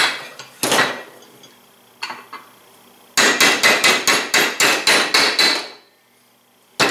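A hammer strikes a steel flat punch to drive a pin back into a Polaris RZR XP 1000 secondary clutch. There are a couple of single sharp metal blows, then a quick run of about a dozen taps at roughly five a second, and one last blow near the end.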